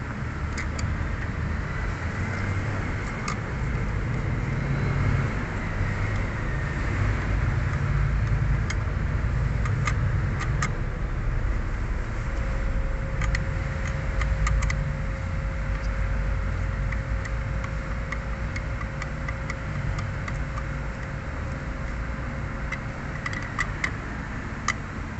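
Scattered metallic clicks of a socket wrench and extension being worked on a bracket nut, with a small run of clicks near the end, over a steady low rumble. A faint steady tone comes in about halfway and stops near the end.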